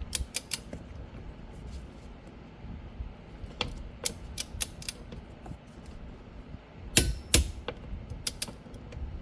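Ratcheting torque wrench tightening a steering wheel retaining nut: short runs of ratchet clicks, with two louder clicks about seven seconds in.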